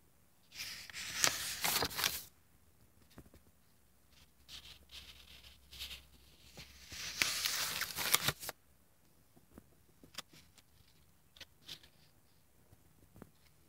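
Pages of a spiral-bound art journal being turned, twice: the thick collaged paper rustles about a second in and again around seven seconds in, with light taps and handling sounds between.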